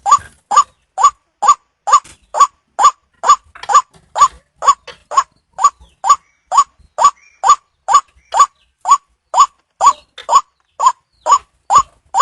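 White-breasted waterhen (ruwak-ruwak) calling, a loud short upward-sweeping note repeated steadily about twice a second, the call used to lure the birds in for hunting.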